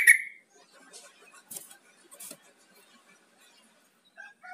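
Yellow-vented bulbul calling: a loud short note at the very start, then a couple of faint clicks, then a bubbly song phrase beginning near the end.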